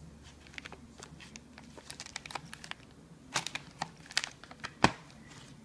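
Clear plastic packaging crinkling and crackling as a cat shifts about inside it. The crackles come irregularly and grow busier in the second half, with one sharp loud snap near the end.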